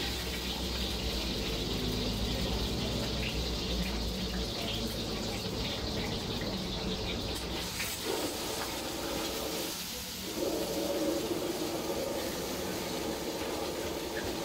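An egg frying in a hot steel wok over a lit gas burner: a steady hiss of sizzling and flame, with the metal ladle scraping and tapping the wok now and then.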